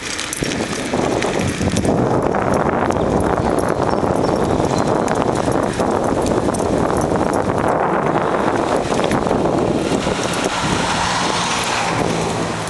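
Mountainboard wheels rolling fast over asphalt, a loud steady noise, with wind buffeting the microphone.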